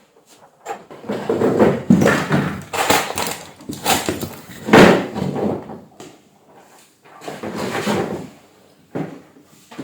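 Irregular rubbing, scraping and knocking of objects being handled, in loud uneven bursts, with a sharp knock near the end.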